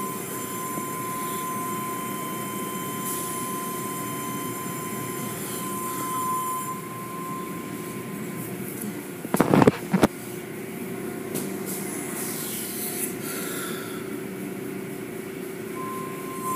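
Automatic tunnel car wash machinery running, with a steady rush of water spray and hanging cloth strips working over a vehicle. A steady high tone drops out about halfway and comes back near the end, and there is a brief loud thumping burst about nine and a half seconds in.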